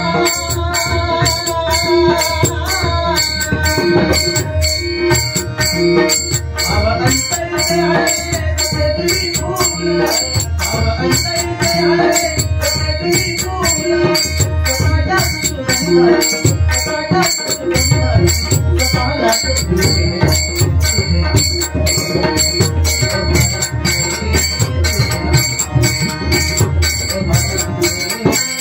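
Instrumental interlude of a devotional bhajan: pakhawaj and tabla drumming under a held melody, with sharp metallic jingling strokes keeping a steady, even beat throughout.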